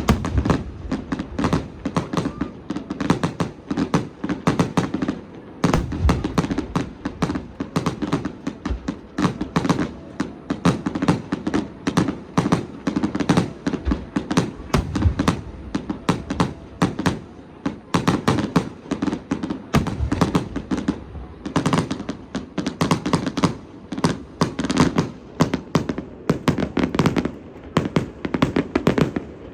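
Fireworks display: a dense, unbroken run of bangs and crackles, many a second.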